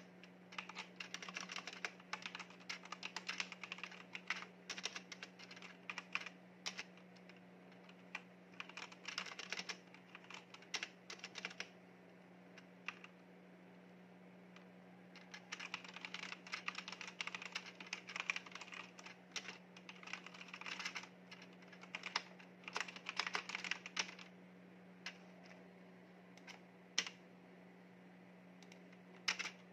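Typing on a Leaven backlit mechanical keyboard: fast runs of key clicks, a lull of a few seconds with only scattered keystrokes a little before the middle, then another fast run, thinning to single clicks near the end. A steady low hum runs underneath.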